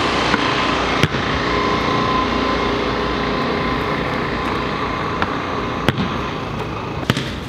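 City street ambience: a steady traffic rumble and hiss. A handful of sharp knocks at irregular intervals come from a basketball hitting the pavement and the building wall.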